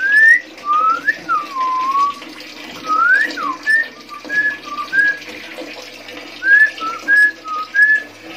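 Chinese hwamei (melodious laughingthrush) singing a run of about fifteen clear whistled notes, each slurring up or down, with a short pause just past the middle.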